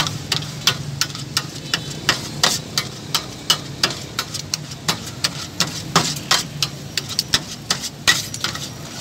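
Metal ladle knocking and scraping against a steel shawarma tray as shaved chicken is chopped and tossed, in sharp clanks about two or three a second at an uneven pace, over a steady low hum.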